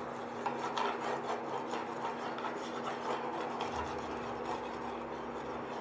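Oil being spread over a heating cooking pan, a utensil rubbing and scraping across the pan's surface in quick, irregular strokes.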